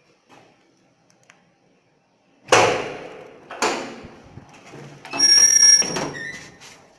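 Elevator doors on an old Zremb traction lift banging shut twice, about a second apart, each bang ringing on briefly. Near the end comes a loud steady ringing tone lasting about a second, ended by a sharp knock.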